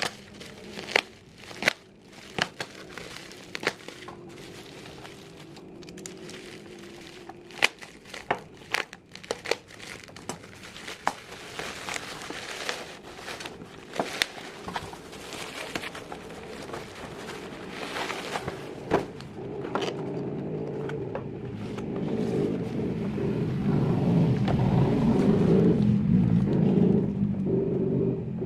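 Plastic packaging crinkling, with many sharp clicks of hard plastic toy parts being handled. Past the two-thirds mark a louder, steady low rumble builds up and holds.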